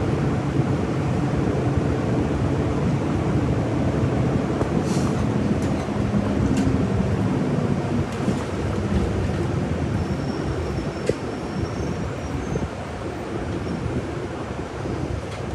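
Steady engine and road rumble inside the cabin of a moving city bus, with a few faint clicks and rattles around the middle.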